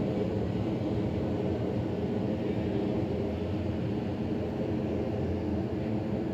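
Airplane flying overhead: a steady, low engine rumble.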